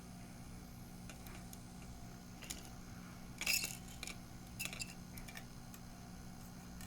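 Small clicks and taps of tools being handled during circuit-board soldering, over a steady low hum; the loudest is a short scrape about three and a half seconds in.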